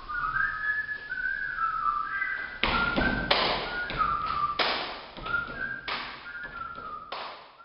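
A person whistling a stepping tune, accompanied from a few seconds in by about seven sharp body-percussion slaps.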